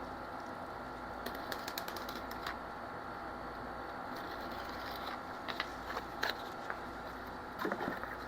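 Scattered light clicks and taps of a piece of cardboard being handled and fitted into a plastic blow mold base, in a few short clusters, over a steady background hum.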